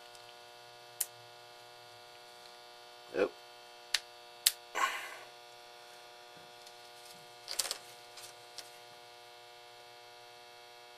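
Sharp plastic clicks and snaps of a pin-header strip being broken apart and handled, about seven scattered through the stretch, the loudest in the middle. A steady electrical hum runs underneath.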